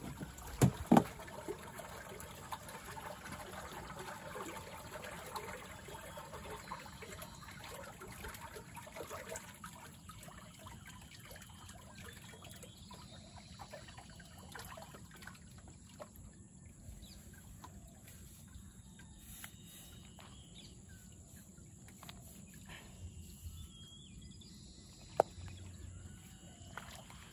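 Water trickling and splashing at a small canoe, busiest over the first several seconds and then quieter, with faint chirps. A couple of sharp knocks come just after the start and one near the end.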